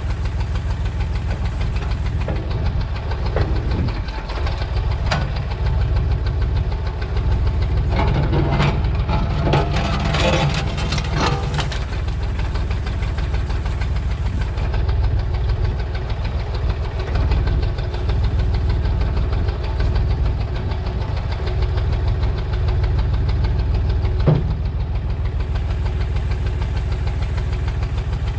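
Old Massey Ferguson backhoe tractor's engine running steadily under work, with a burst of cracking and clattering about a third of the way in and a single sharp knock near the end.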